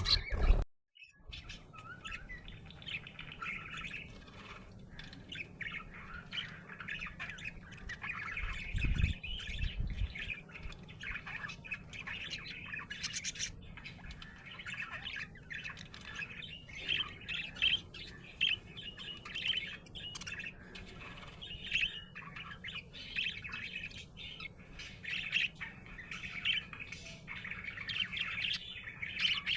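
Budgerigar chirping and warbling in a steady run of quick, short chirps. The sound cuts out abruptly for a moment right at the start, and there is a brief low thump about nine seconds in.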